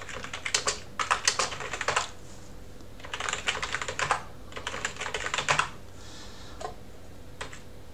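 Typing on a computer keyboard: three quick bursts of keystrokes with short pauses between them, then a few single key presses near the end.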